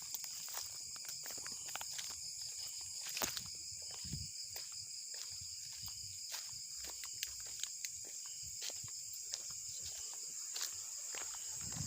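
Steady high-pitched insect chorus, crickets or katydids trilling without a break, with many scattered short clicks and a couple of soft low thumps, about four seconds in and near the end.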